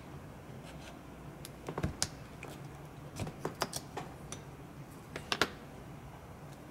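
Light clicks and taps of small wooden strips and a card model piece being handled and set down on a cutting mat. The taps come in three small clusters, about two seconds in, around three and a half seconds in, and again a little after five seconds.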